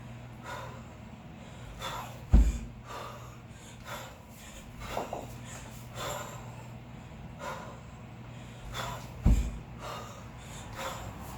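Hard, rhythmic breathing of a kettlebell lifter working through a long cycle set with double 16 kg kettlebells, with two heavy thuds about seven seconds apart.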